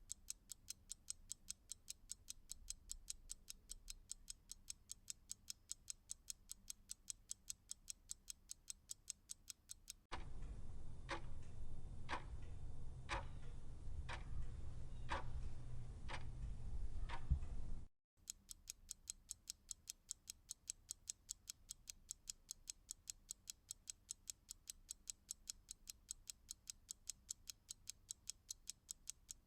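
Clock ticking: a quick, even run of sharp ticks, about five a second, gives way about ten seconds in to a slower tick about once a second over a low hum, then the quick ticking returns after a brief gap near the end of that stretch.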